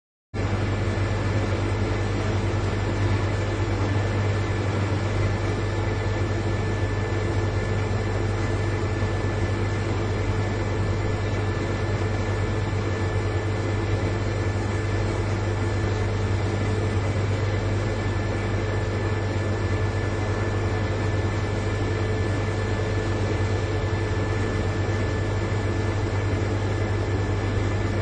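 Large refrigerator's compressor running with a steady, even low hum, with a few fainter steady tones above it.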